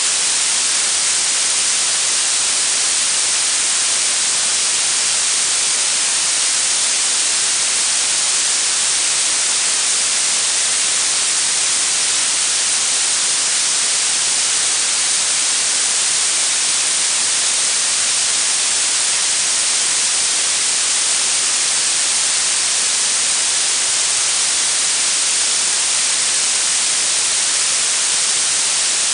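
Steady synthetic blue noise: an even, unbroken hiss that grows stronger toward the high end, with little low rumble.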